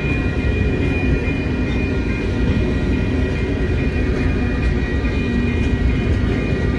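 Freight train of covered hopper cars rolling past at close range: a steady, loud rumble and clatter of wheels on rails, with a thin steady high whine over it.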